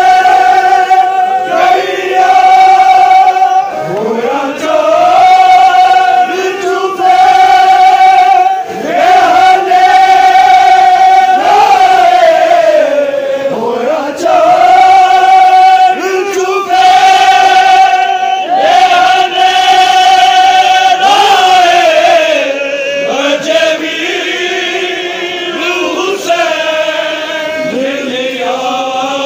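A male reciter singing a Shia noha (lament) through a microphone, with a crowd of men chanting along in unison. The long held notes come in drawn-out phrases of about two seconds each and grow somewhat quieter near the end.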